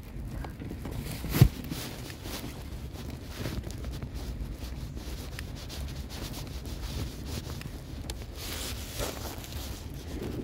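Stroller wheels rolling over pavement with a steady low rumble, and wind buffeting the microphone. A single sharp knock about a second and a half in.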